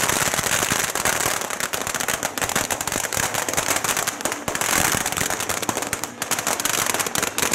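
Strings of firecrackers going off in a dense, continuous rattle of rapid bangs.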